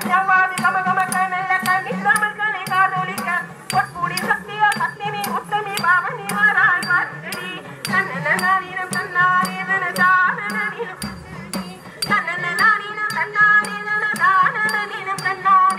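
Live South Indian devotional folk music: a sung melody over brass hand cymbals clashing on a steady beat about twice a second, with a drum underneath.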